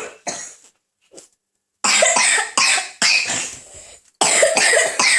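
A person coughing hard in a series of harsh coughs: three close together about two seconds in, then a pause, then three more near the end.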